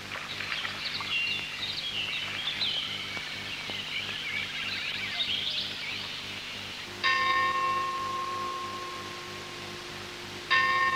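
Many high children's shouts and shrieks from swimmers for about six seconds. Then a bell is struck twice, about three and a half seconds apart, each stroke ringing on and slowly fading.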